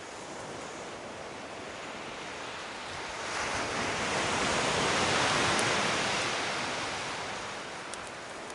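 Surf on a shingle beach: a wave comes in as a rushing hiss that swells from about three seconds in, peaks around the middle, and fades away again near the end.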